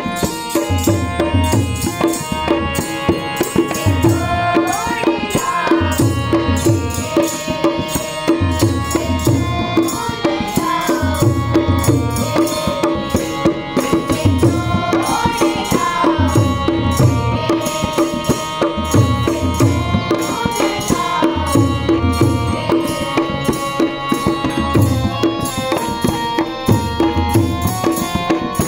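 A harmonium and a dholak accompanying a group of schoolgirls singing a Hindi devotional prayer song (bhajan), the dholak keeping a steady beat under the held reed chords and the sung melody.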